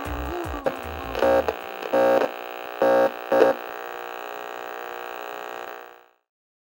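Reggae-style intro jingle ending: the bass drops out about a second and a half in, a few short chord stabs follow, then a held chord that cuts off about six seconds in.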